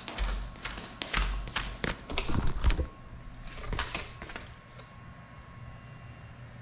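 Cinelog35 FPV drone flying indoors, heard on its onboard camera as short muffled rumbling bursts and a quick run of sharp clicks and knocks in the first three seconds, settling to a quieter steady hum after about four and a half seconds.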